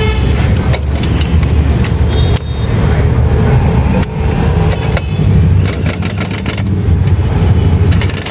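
A motor vehicle engine running steadily with a low rumble, and a few quick runs of sharp clicks, several in a row, around the middle and near the end.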